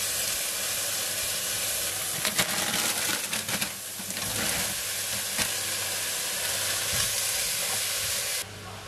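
Chicken pieces sizzling in a hot nonstick frying pan, stirred with a spatula with scattered scrapes and knocks. Coleslaw mix is tipped into the pan about four seconds in. The sizzle drops away abruptly near the end.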